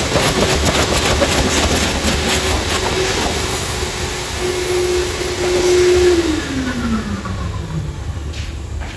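A vacuum cleaner runs with its nozzle worked over a carpet car floor mat, sucking up dog hair. About six seconds in it is switched off, and its motor whine falls steadily in pitch as it winds down.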